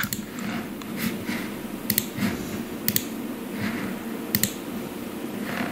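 A few short, sharp clicks at a computer, some in quick pairs, about a second apart, over a steady low hum.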